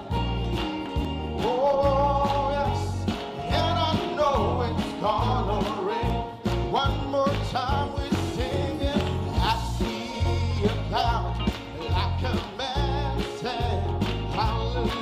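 Country-gospel band music with a steady bass-and-drum beat and a wavering lead melody line.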